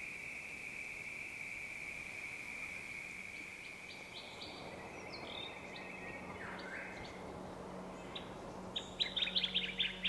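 A steady high-pitched insect chorus of the night bush fades out about halfway through, while birds begin calling. Near the end, a quick run of sharp bird chirps is the loudest sound.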